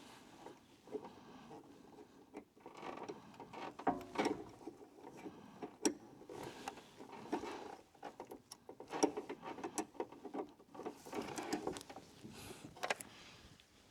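Hand tools working on a car's engine bay: irregular clicks, clinks and short scrapes of metal tools on fasteners and parts, with a few sharper knocks around the middle.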